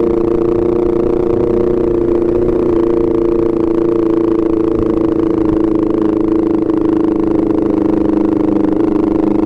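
Honda CBR250RR with an R9 GP aftermarket racing exhaust running at steady revs while riding, its exhaust note holding an even, unchanging pitch.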